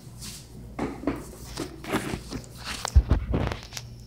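Rustling, rubbing and knocks of a handheld phone camera being moved about close to its microphone, with a heavy thump about three seconds in.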